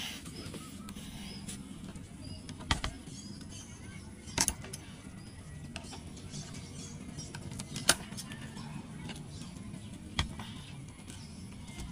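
Outdoor background of faint, high bird chirps over a steady low hum, broken by a few sharp clicks or knocks, the loudest near the middle.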